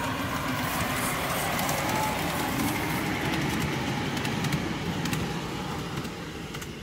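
5-inch gauge model steam locomotive and its loaded ride-on passenger cars running past, the wheels rattling and clicking along the track. Loudest in the middle, fading as the train draws away near the end.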